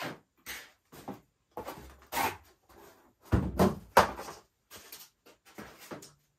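A series of short knocks, taps and rustles as model-plane parts and their packaging are handled and set down on a table, with the heaviest thump about three and a half to four seconds in.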